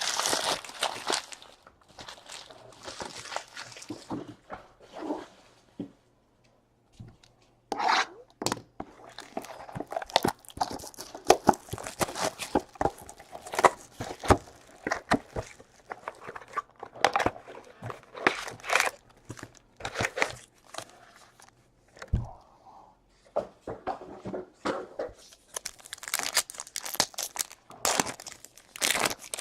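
Trading card packs being torn open, wrappers crinkling and cards rustling as they are handled, in irregular spells of activity with a short pause about six seconds in.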